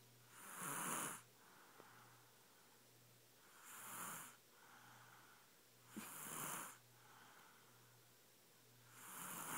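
A sleeping baby snoring: four loud snores about every two and a half to three seconds, each followed by a softer breath.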